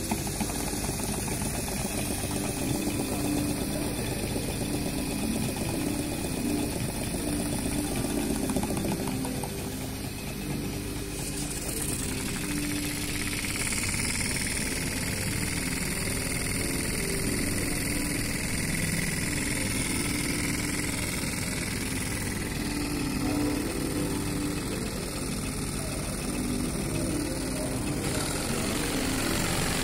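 Small model stationary steam engines running on compressed air, a steady rapid chuffing and clatter of their valves and cranks. The sound shifts about twelve seconds in and again near the end as different engines come closer.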